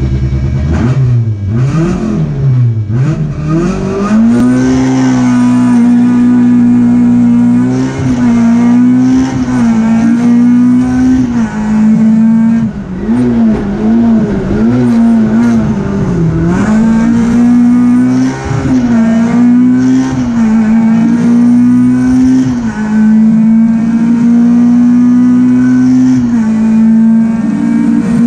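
Peugeot 306 Group A rally car's four-cylinder engine, heard from inside the cockpit under hard acceleration. The revs swing up and down a few times as it pulls away, then stay high with short dips at each gear change. Around the middle there is a run of quick rises and falls through tighter corners.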